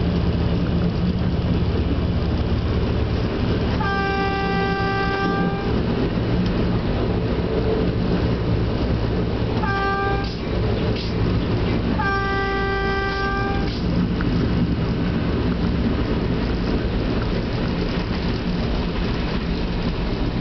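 Stadler diesel light-rail car running, heard from inside the car as a steady engine and rail drone, with the train's horn sounding three times: a long blast about four seconds in, a short one around ten seconds, and another long one soon after. This is the horn signal for a road crossing.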